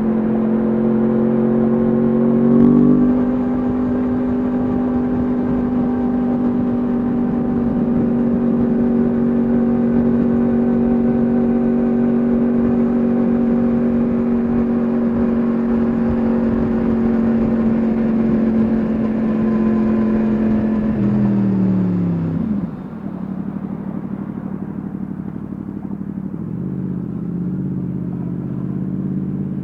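Yamaha MT-10 SP's crossplane inline-four with an Akrapovic exhaust, heard from onboard, holding a steady note at a constant engine speed. About 21 seconds in the pitch falls sharply as the engine speed drops, and it settles into a lower, quieter running note.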